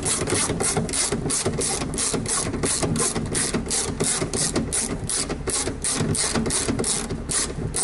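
Ratchet wrench with a 10 mm socket clicking steadily as a bolt on the door latch assembly is run back in, about five pawl clicks a second.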